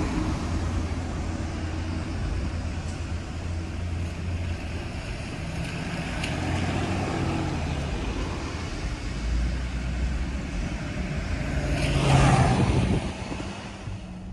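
Street traffic: a steady engine hum under road noise, with a vehicle passing close by near the end, getting louder and then fading.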